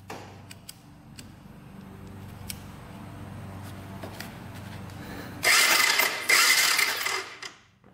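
A faint steady low hum, then about 5 seconds in the 1998 Honda Fourtrax 300's electric starter cranks the engine for about two seconds, with a short break midway. It spins with an even whir and no compression strokes, since the spark plug is out for a spark check.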